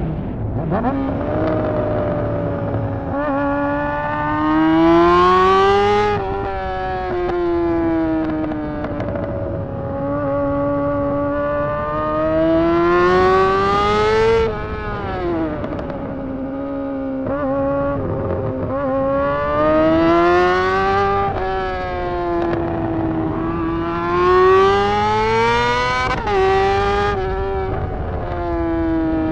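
Honda CBR600 inline-four engine running with no exhaust fitted, loud and raw under way. The revs climb and then fall away sharply about four times.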